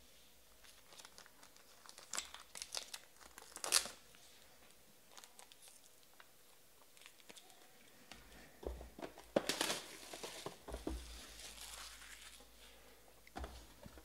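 A few light clicks and taps of a plastic card holder being handled and set down, then, about halfway through, several seconds of crinkling and tearing as the plastic wrap is pulled off a sealed box of baseball cards.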